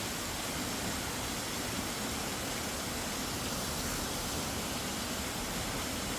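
Waterfall rushing steadily, swollen by heavy rain: an even, unbroken hiss of falling water.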